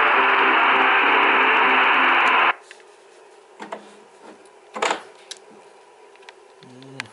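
Shortwave broadcast on 4905 kHz (PBS Xizang) from a Tecsun PL-450 receiver's speaker: a loud hiss of static with faint music tones under it, cut off abruptly about two and a half seconds in. After that come a few light clicks and a knock from handling on the bench.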